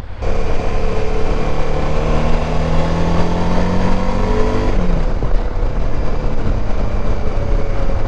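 Suzuki V-Strom DL650 XT's V-twin engine accelerating, its pitch rising steadily for about four seconds. The pitch then drops and the engine runs steady under a rush of wind noise.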